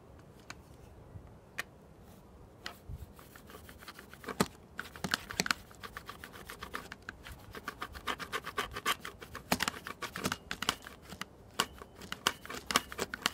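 Rotary cutter blade rolling and pressing through thick water buffalo leather along a ruler: a dry, crackling scratch made of many irregular clicks. It is sparse at first and dense from about four seconds in.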